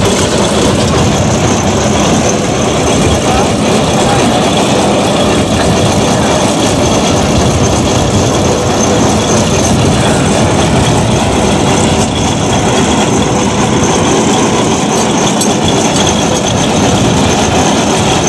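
Engine of a truck-mounted borewell drilling rig running steadily and loudly while the rig works.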